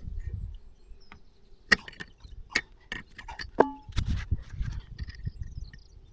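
Metal hand tools knocking and clinking on a threaded steel bolt while its damaged threads are being straightened, with scraping and handling noise in between. Three sharp knocks stand out, the one about three and a half seconds in ringing briefly.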